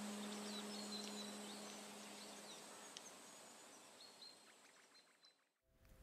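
Faint outdoor ambience with small bird chirps under the fading tail of a low held musical tone; the sound fades to silence about five and a half seconds in, and a new ambient music track starts right at the end.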